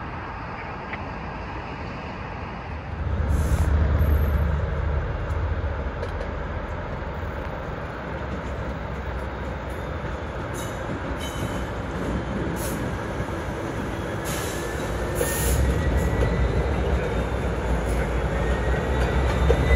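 Canadian National diesel freight locomotives rumbling as they pull a train slowly toward and past. The low engine rumble swells about three seconds in and again near the end as the units draw close, with a faint high squeal in the second half.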